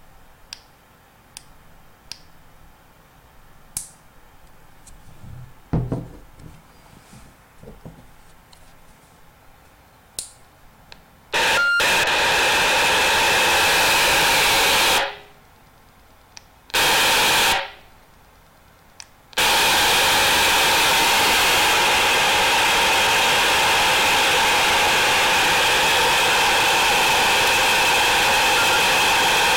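Baofeng UV-5R handheld radio's speaker hissing loud static, the noise fault its owner is showing. It comes in three stretches: about three seconds, then a burst under a second, then without a break for the last ten seconds. Before it there are a few faint clicks and a soft thump.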